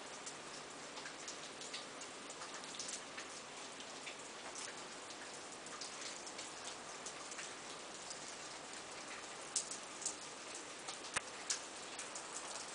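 Ice-coated trees after an ice storm: a steady patter of dripping with many scattered sharp ticks and cracks from the iced branches, a few louder cracks about ten seconds in.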